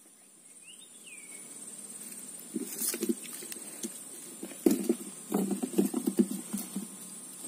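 Irregular soft knocks and rustling from handling fishing gear and the camera at the bank, loudest from about two and a half seconds in. A steady high-pitched whine runs under it throughout, and there is one short rising-and-falling chirp near the start.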